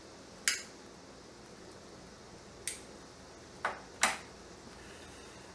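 A man puffing on a tobacco pipe: four short, sharp puffs of the lips on the stem, the last two close together.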